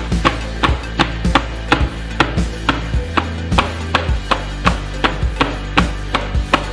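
Background music with a steady beat of sharp, evenly spaced strikes, about three a second, over held low notes.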